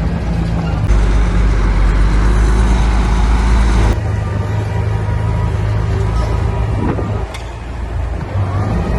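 Heavy diesel construction machinery engine running steadily. It gets louder for a few seconds early on, then drops back suddenly, and there is a single clank about seven seconds in.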